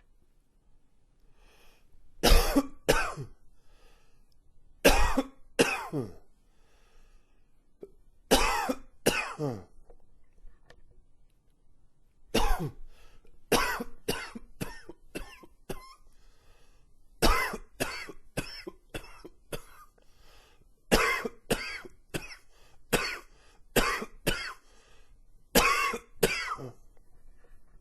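A man coughing in a fit: pairs of hard coughs a few seconds apart, then from about halfway through longer runs of quick coughs, about three a second.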